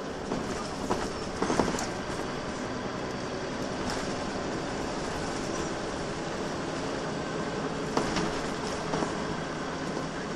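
Inside a moving Volvo B10BLE single-deck bus: steady diesel engine drone and road noise from the running bus. A few sharp knocks and rattles come through, clustered about a second and a half in and again around eight seconds in.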